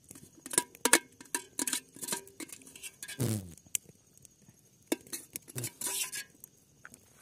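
A utensil clinking and scraping against the inside of a soot-blackened metal kettle as noodles are scooped out: irregular sharp clinks in two clusters, with a short falling vocal sound about three seconds in.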